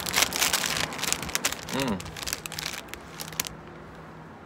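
Plastic bread wrapper crinkling close to the microphone as a soft sweet bread is bitten into and chewed, with a short hummed "mm" about two seconds in. The crinkling stops about three and a half seconds in.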